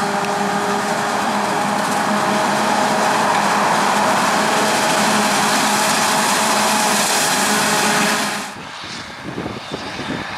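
Claas Jaguar 970 forage harvester chopping maize under load, with the tractor and trailer running beside it: a loud, steady machine drone with a steady hum. About eight seconds in, the sound drops suddenly to a quieter, more distant running of the same machinery.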